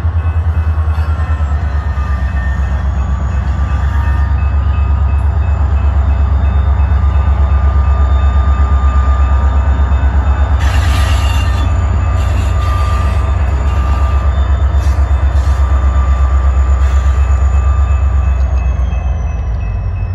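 EMD SD45 diesel-electric locomotive's 20-cylinder two-stroke engine running with a deep, steady throb as it passes close at low speed pulling covered hoppers. Faint wheel squeal comes and goes, and there is a brief hiss about eleven seconds in.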